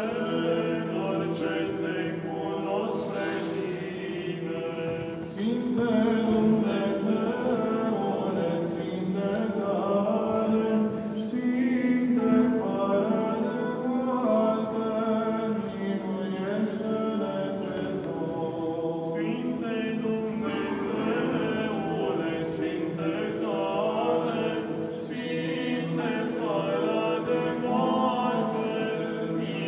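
Romanian Orthodox liturgical chant sung unaccompanied by cantors at a lectern, in the cathedral. A low note is held under the moving melody.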